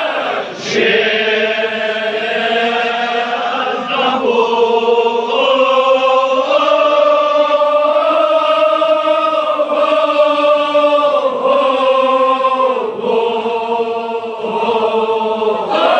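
Men chanting a Kashmiri marsiya (Shia elegy) in long, drawn-out held notes that step up and down in pitch, many voices sounding together.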